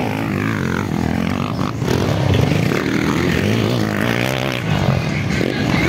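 Motocross dirt bike engines revving up and down in pitch, running continuously as the bikes ride the dirt track.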